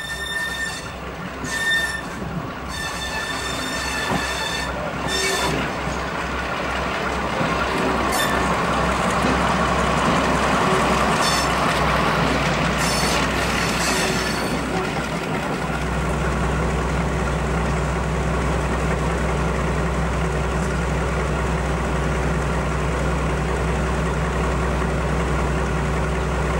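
Class 42 Warship diesel-hydraulic locomotive D832 'Onslaught', with twin Maybach engines, drawing slowly past with a high metallic squeal coming and going from the wheels, its engine sound growing as it comes close. About fifteen seconds in the sound switches to a steady low diesel engine drone at idle.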